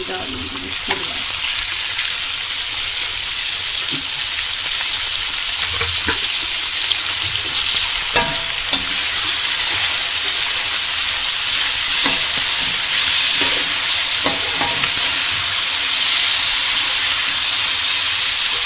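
Peas, onion and freshly added chopped tomatoes sizzling in hot oil in a metal kadhai, getting louder over the first few seconds. They are stirred with a slotted metal spatula that scrapes and clinks against the pan now and then.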